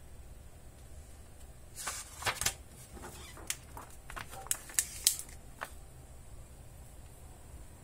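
A thin plastic flexi-disc sheet bound into a magazine is handled and laid flat: a string of sharp crinkly crackles and clicks from about two seconds in to past five seconds, loudest near the start of the run and again around five seconds.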